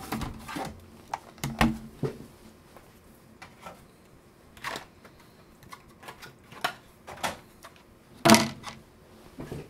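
Scattered clicks and knocks of small hard objects being handled on a workbench. The sharpest knock comes about eight seconds in.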